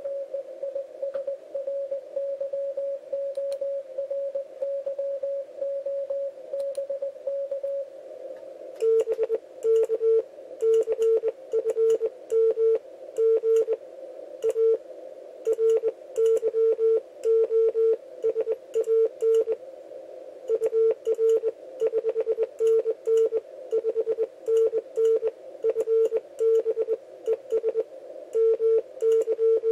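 Morse code (CW) on an amateur radio transceiver: a tone keyed in dots and dashes, at a higher pitch for about the first eight seconds. From about nine seconds a lower, louder keyed tone takes over, with the mechanical clicking of the hand-worked Morse key on each element.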